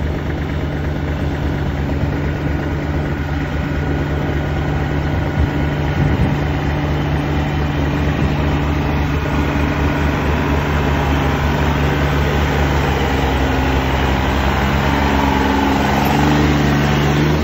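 John Deere 3036E compact tractor's three-cylinder diesel engine running steadily under load as it works a rear implement through flooded mud. It grows slightly louder as it comes closer, and the engine note shifts near the end.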